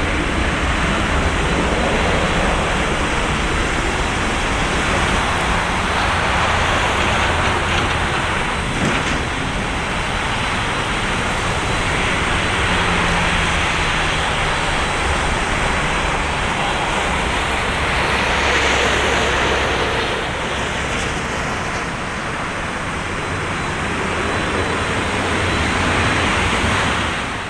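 Boeing 737-200's Pratt & Whitney JT8D jet engines on takeoff: a loud, steady jet rumble and hiss that swells and eases slightly, cutting off abruptly at the end.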